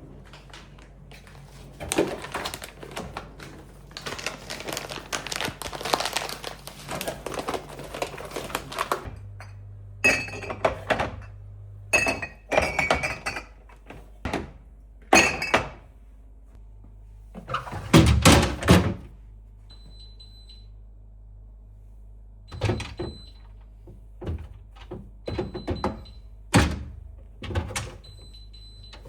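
Household objects being handled indoors: several seconds of scraping and rustling, then a series of separate knocks and clunks as things are set down, with short quiet gaps between them.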